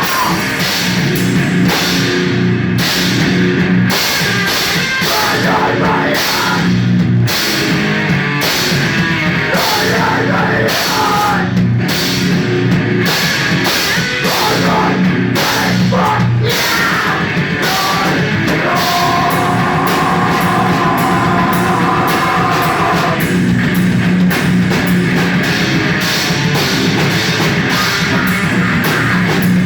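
Rock band playing a heavy, metal-style song in a rehearsal room: a drum kit with a constant wash of cymbals under heavy guitars. A higher held note sounds over it for a few seconds about two-thirds of the way through.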